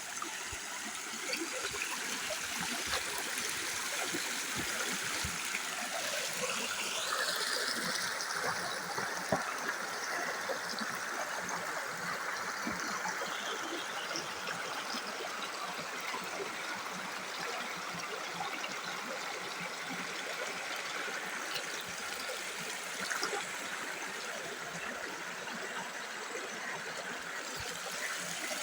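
Rain-swollen stream rushing steadily.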